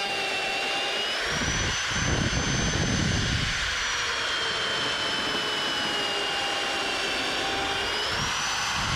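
Electric drill running a pipe plug cutter through rubber track belting: a steady motor whine that rises and falls in pitch, with a deeper rumble twice, about a second in and near the end, as the cutter bites into the rubber.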